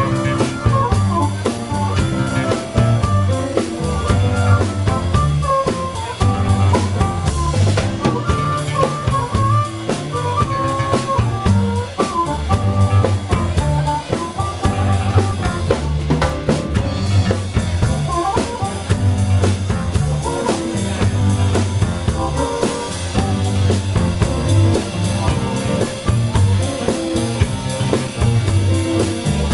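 Live blues band playing: an amplified harmonica solo with bending notes over a Roland RD-700 stage piano, electric bass and a drum kit keeping a steady groove.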